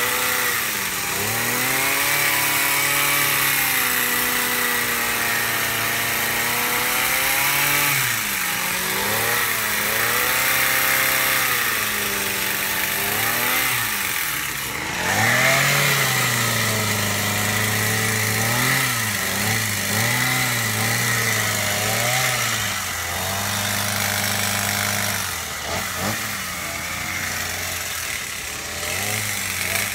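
Small-engine gas hedge trimmer running throughout. Its engine pitch rises and falls again and again as the throttle is squeezed and eased during cutting, and it is briefly at its loudest about halfway through.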